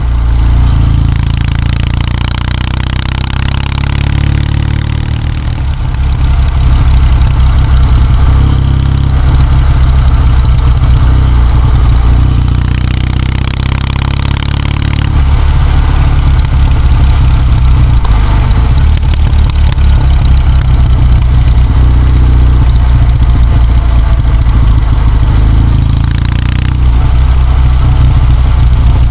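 Kawasaki W650's air-cooled parallel-twin engine running steadily, a loud, continuous low rumble.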